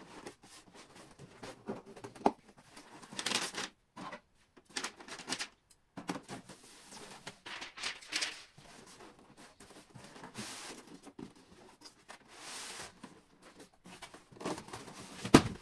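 Cardboard box and styrofoam packing being handled as a monitor is slid out: irregular rustling and scraping of cardboard flaps and foam, with a sharp knock near the end.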